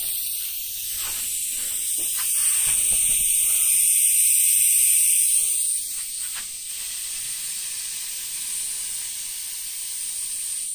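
Compressed-air hiss from a small gravity-feed detail spray gun spraying finish, louder for a pass from about two to six seconds in, then settling to a softer hiss.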